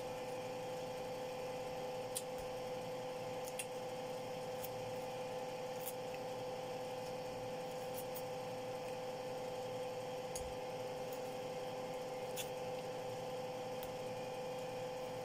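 Faint squishes and small scattered clicks as a white pomelo segment is pulled apart and peeled by hand, over a steady hum.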